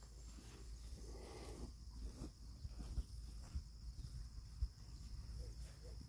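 Faint pasture ambience: a steady high insect hum, with irregular soft low thumps, the strongest about three and four and a half seconds in.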